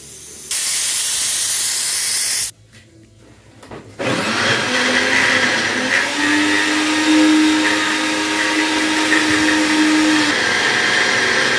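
Countertop blender running steadily from about four seconds in, puréeing steamed butternut squash, its motor noise carrying a few steady pitch lines. Before it, a loud hiss lasts about two seconds and stops abruptly.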